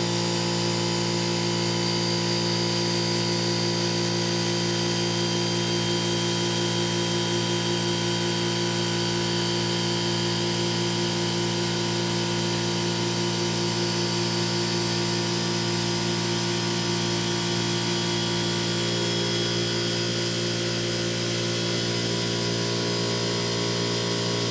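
Haas VF-2 CNC vertical machining center running at speed: a steady mechanical whine made of several fixed tones, holding even throughout.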